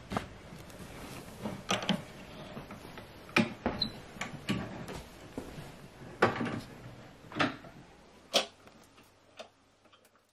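Flat-pack cabinet assembly: scattered quiet knocks, clicks and creaks of panels and hardware being handled, about eight distinct knocks, thinning out near the end.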